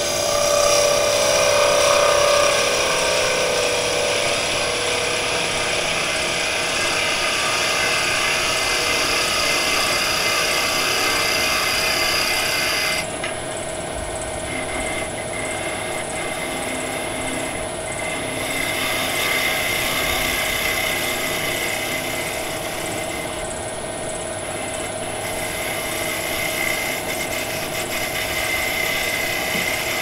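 Wood lathe running while a hand-held turning tool cuts a small wooden spindle, a steady scraping cut over the hum of the lathe. The heavier cutting stops suddenly about 13 seconds in, and lighter cuts go on over the running lathe.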